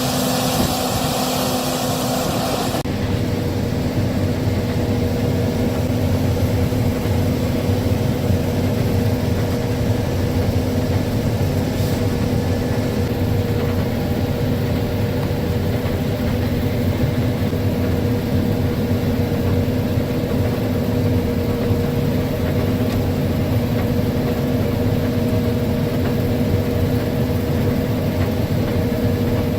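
Case IH 6140 combine running steadily during soybean harvest: a constant engine and machinery hum with a droning tone. A loud high hiss cuts off about three seconds in.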